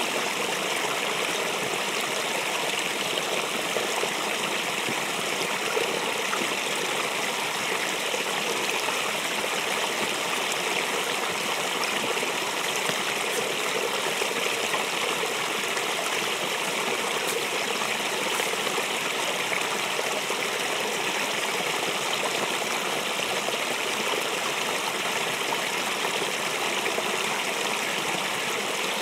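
Shallow creek running over rocks: a steady, even rushing of water.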